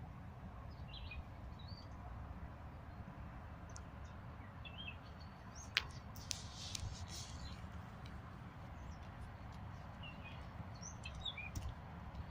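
Birds chirping over a low, steady rumble, with a single sharp click about six seconds in.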